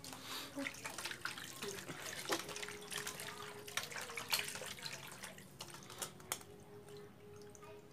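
Hands working raw chicken pieces in a wet steel bowl: irregular wet squelching and splashing, with many short clicks.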